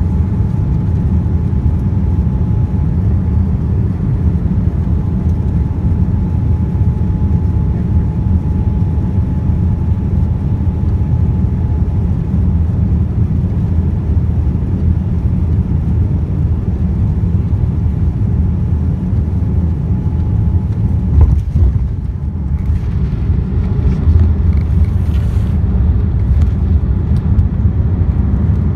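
Cabin noise of a Boeing 787-9 airliner descending: a steady low rumble of engines and airflow with a faint steady whine. About three-quarters of the way through there is a sudden thump, after which the noise carries more hiss.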